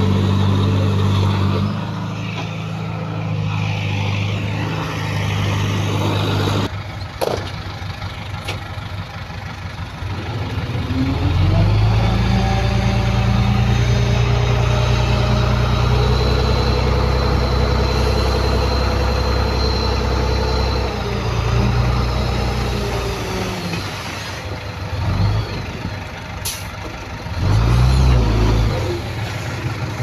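Heavy diesel engines of earthmoving machinery running. About a third of the way in, one engine rises in pitch and gets louder under load, holds for about ten seconds, then settles back. A few short sharp clicks come between.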